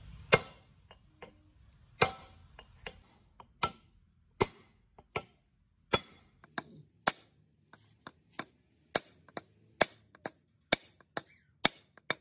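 Hammer blows on a metal pipe used as a driver over a speed-reducer gearbox shaft, tapping a part home: sharp ringing metal strikes, a few spaced out at first, then coming steadily about two a second.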